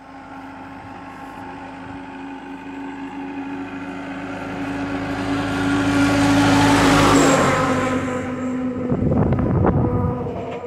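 A light truck's engine draws nearer with a steady hum and swelling tyre noise. It is loudest as it passes about seven seconds in, then fades away. Shortly after, rough buffeting of wind on the microphone comes in its wake.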